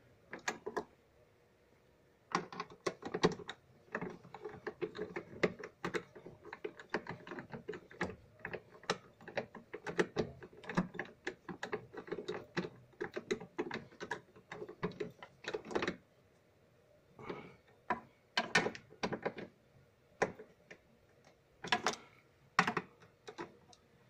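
Hand driver clicking as screws are tightened back into a washing machine's transmission and shift-actuator assembly. A long run of rapid, irregular clicks starts about two seconds in, stops briefly past the middle, then goes on as scattered clicks.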